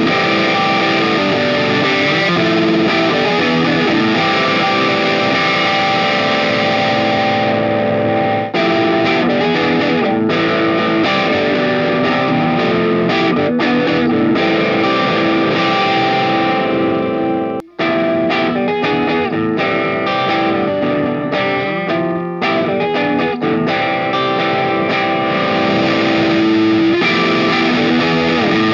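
Electric guitar played through a distortion pedal, with dense, heavily distorted playing. It cuts out completely for a moment a little past halfway, then carries on.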